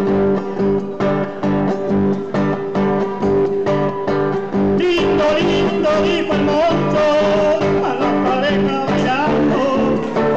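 Acoustic guitar strummed in a steady rhythm, with a singing voice coming in about halfway through over the chords.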